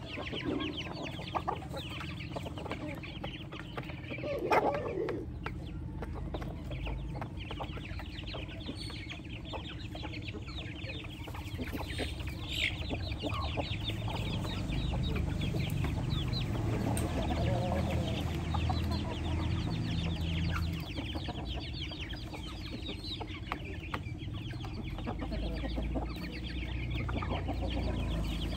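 A flock of chickens feeding: hens and roosters clucking while young chicks peep constantly in short high calls, with one louder call about four and a half seconds in.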